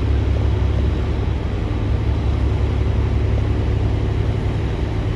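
Steady low rumble of a car ferry under way, its engines running with a faint steady hum over rushing wind and water noise on the open deck.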